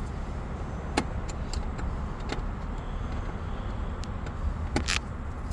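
A few sharp clicks and taps of hand tools on metal as screws are worked out of a car's fuel pump housing: one about a second in, one a little past two seconds and the strongest near the end. A steady low rumble runs under them.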